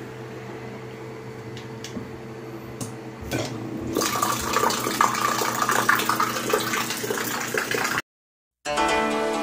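Battery-powered water dispenser pump on a 20-litre bottle humming steadily as it runs. After about three and a half seconds its stream splashes loudly into a steel tumbler, filling it. The sound cuts off abruptly near the end, and plucked-string music starts.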